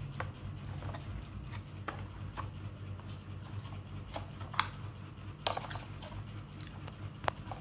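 Light plastic clicks and taps from a toy garbage truck being handled and its rear tailgate lifted, with a few sharper clicks past the middle and near the end, over a faint steady low hum.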